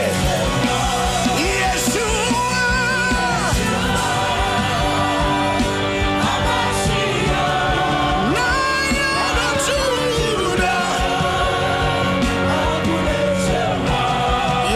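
A congregation wailing, crying out and groaning together in travailing prayer, the voices rising and falling over a musical accompaniment of sustained chords and a beat.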